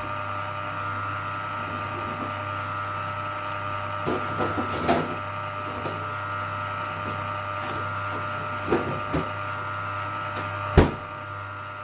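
Small electric ice cream maker's motor running with a steady hum as it churns ice cream thickened to soft-serve. A few light knocks of a spatula against a plastic tub, with one sharp knock near the end.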